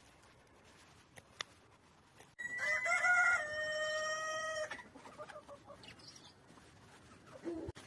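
Rooster crowing once: a single call of about two seconds whose pitch steps down partway through.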